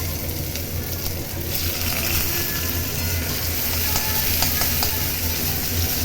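Chopped onion sizzling in hot oil in a kadai as it is stirred, the sizzle growing louder about a second and a half in, with a few clicks of the spatula against the pan. A steady low hum from the kitchen chimney's exhaust fan runs underneath.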